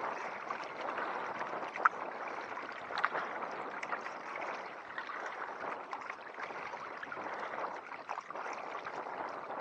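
River water splashing and gurgling against a kayak in the choppy tidal current, with many small splashes and one sharper one about two seconds in.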